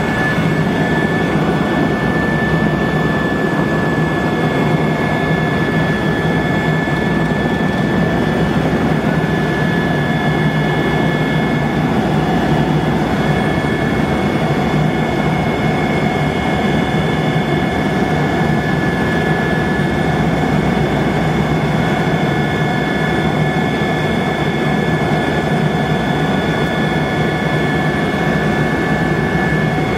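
Cabin noise of a 2001 Eurocopter EC120 Colibri helicopter in cruise: its single Turbomeca Arrius 2F turboshaft engine and rotors give a loud, steady rushing drone with several steady high whines over it.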